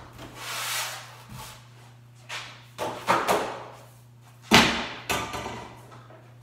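A heavy wooden frame being shifted and set down: a series of scrapes and knocks, with the loudest thump about four and a half seconds in.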